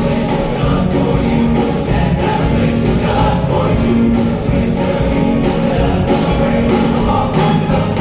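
A choir singing a Christmas song with instrumental accompaniment and a steady beat.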